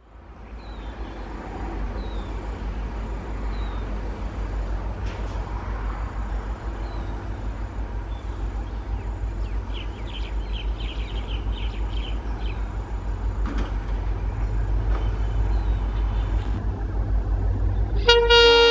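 Low, pulsing rumble of an approaching EMD WDP4D diesel locomotive hauling a passenger train, growing steadily louder, with birds chirping over it. Near the end the locomotive's multi-tone horn starts sounding loudly.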